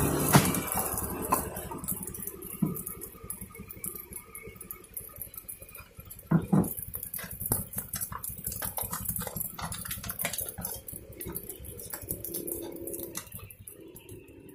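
A metal spatula scraping and knocking on a wok as fried rice is scooped out, then scattered clicks and the crinkle of paper as the rice is wrapped, with two sharp knocks about six seconds in.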